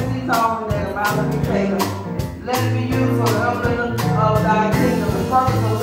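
Church music: a voice singing over sustained low instrumental notes, with sharp percussive beats in a regular rhythm.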